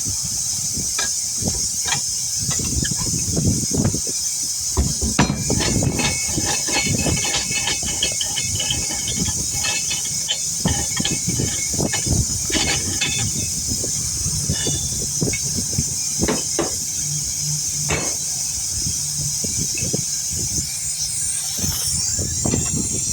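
Air hissing steadily out of a car tire through its valve stem as the tire is deflated, with scattered knocks and clicks of handling over it.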